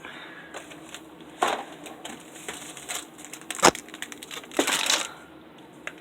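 Snack boxes and packets being handled and set onto a cupboard shelf: packaging rustles and crinkles, with a sharp knock a little past halfway and a longer crinkle about a second later.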